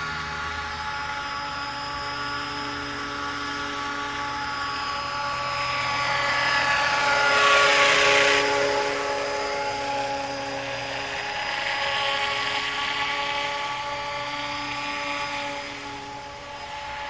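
Radio-controlled scale BO-105 helicopter with a four-blade main rotor flying, a steady whine of motor and rotor. It swells to its loudest about halfway through with a rush of blade noise, then its pitch drops a little and it fades, swelling once more briefly.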